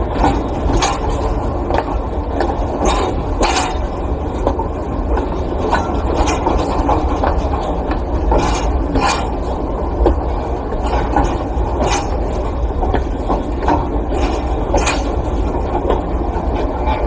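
A long freight train passing slowly: a steady low rumble with the wagons rattling and clanking like scrap metal, sharp metallic bangs coming at irregular intervals throughout.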